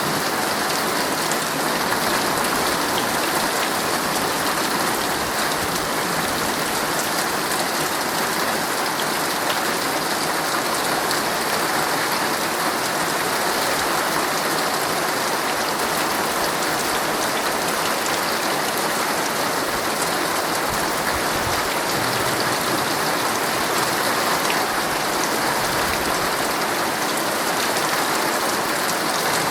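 Heavy rain drumming steadily on a tent's fabric, a dense, even hiss peppered with the ticks of single drops.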